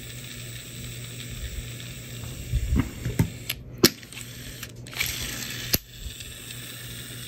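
Daiwa Alphas ITO baitcasting reel, just fitted with new bearings and oiled, being handled and cranked: a ratcheting gear sound with a handful of sharp clicks spread through, and a brief whir of the spool about five seconds in.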